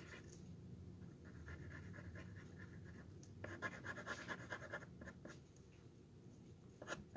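Thin black marker drawing on the bowl of a wooden spoon: faint, short scratchy strokes, coming in two busier spells a few seconds in.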